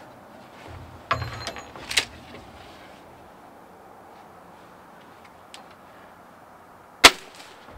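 Gamo Swarm Magnum .22 break-barrel air rifle fired once, a single sharp shot near the end; the pellet leaves at about 924 feet per second, below the speed of sound. Before it, the rifle is handled: a rattle and a click about a second or two in.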